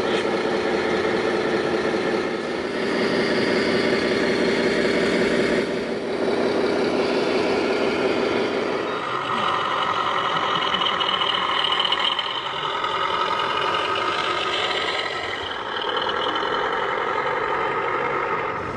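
A truck's engine running steadily, with several layered pitches that shift upward about halfway through.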